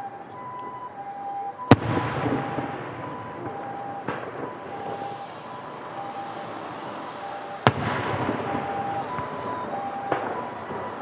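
Fireworks shells bursting: two loud, sharp bangs about six seconds apart and two weaker booms, each trailing off into a rumbling crackle. Behind them a two-tone siren alternates steadily between a higher and a lower pitch.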